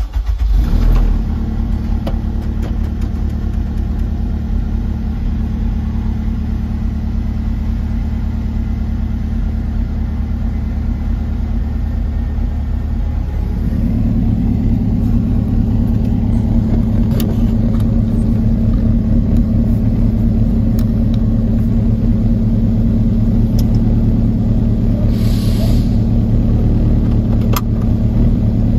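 Honda K20A2 2.0-litre four-cylinder engine in a Lotus Elise starting up and settling into a steady idle, heard from inside the cabin. About 14 seconds in the idle note steps up slightly and gets louder. The engine is freshly swapped and not yet tuned.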